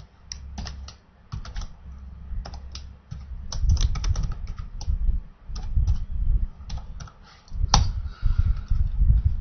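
Typing on a computer keyboard: a run of irregular keystrokes, with one sharper key press near the end.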